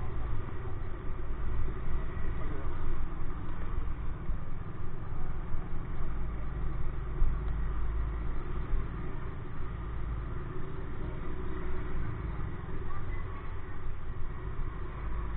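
Motorcycle ridden slowly, its engine running at low revs under a heavy, uneven low rumble on the onboard microphone.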